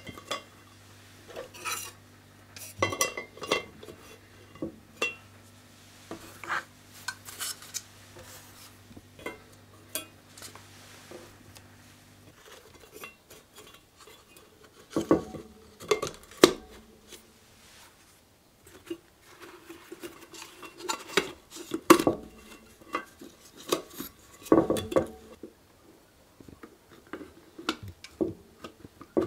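Metal parts of a Beatrice No.33 paraffin stove clinking and knocking irregularly as they are fitted together by hand: wick holders set into the enamelled base and brass carrier frames placed on top.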